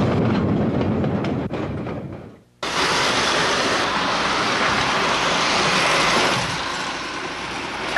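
Freight train rolling past, a heavy rumble with wheels clicking over rail joints, fading away over about two and a half seconds. After a moment of quiet, a steady hiss cuts in suddenly.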